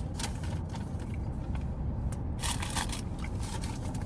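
Crunchy chewing of a breaded, fried chicken nugget, with irregular crackles that are loudest a little past halfway, over a steady low rumble.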